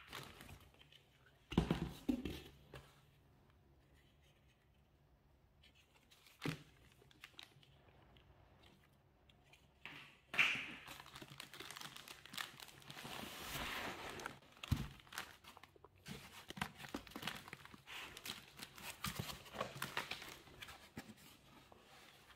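Clear plastic wrapping crinkling and rustling as it is handled: a short rustle about two seconds in, then near-continuous crackling and crinkling from about ten seconds on.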